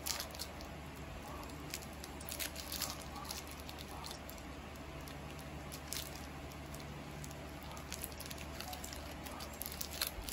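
A Siamese cat's paws and claws pattering and clicking on a tiled floor as it spins chasing clear tape stuck to its tail, with scattered light taps.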